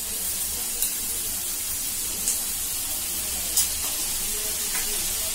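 Chicken Manchurian balls and vegetables frying in a kadai with tomato ketchup just added: a steady sizzling hiss, with three sharp clicks.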